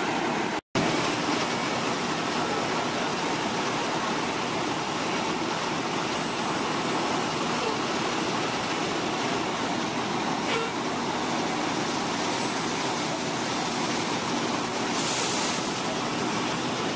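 Fire apparatus diesel engines running steadily at the scene, a constant even rumble and hiss. The sound cuts out for an instant just under a second in, and a short hiss comes in about fifteen seconds in.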